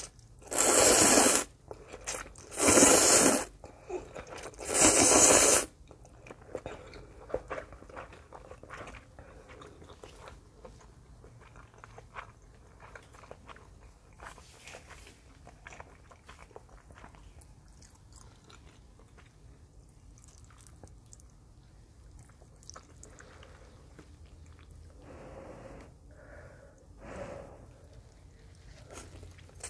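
Three loud slurps of spicy ramen noodles and soup, each about a second long, in the first six seconds. After that, quiet chewing with small wet clicks and smacks.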